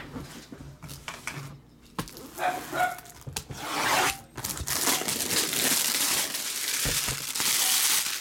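Packaging being handled and torn open. A few sharp clicks and rustles come first, then a continuous crinkling and tearing from about four seconds in.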